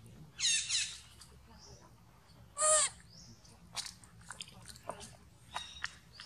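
Two high-pitched animal calls: a short one under a second in and a louder, clearer one near the middle, followed by scattered faint clicks and crunches.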